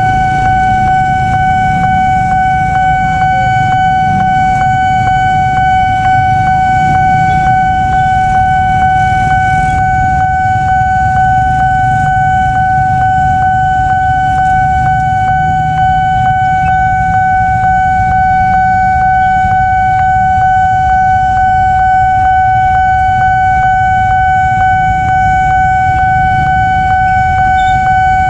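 Railway level-crossing warning alarm sounding one continuous high tone while the barrier is down and a train is due, over the low rumble of idling motorcycles and traffic.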